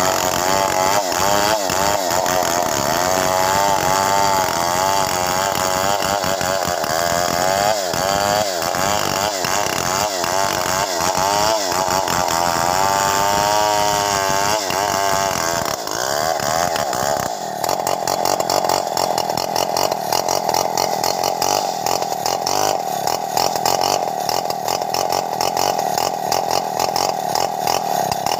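Stihl 070 two-stroke chainsaw ripping lengthwise through a hardwood log, its engine note wavering up and down as it works in the cut. About two-thirds of the way through, the sound changes abruptly to a steadier, even note.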